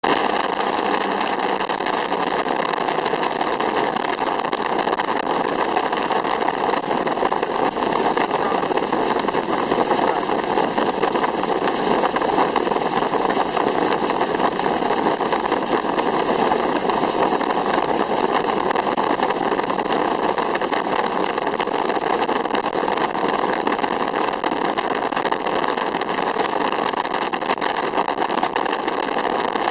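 Steady in-flight noise heard from on board a gyrocopter, a dense even rush of airflow and aircraft noise that holds at one level throughout.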